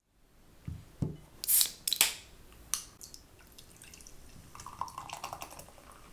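Two soft thumps and a few sharp clicks and short hisses, then non-alcoholic beer poured from a can into a mug, splashing and fizzing as it foams up.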